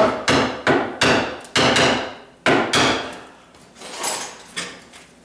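A hammer striking a screwdriver, driving it in as a wedge under plywood nailed to a cabinet top: a series of sharp blows, about six in the first three seconds, then two lighter ones.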